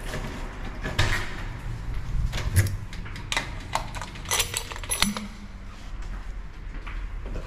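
Handling noises: a series of separate knocks and clicks, with a brief high metallic jingle about four and a half seconds in.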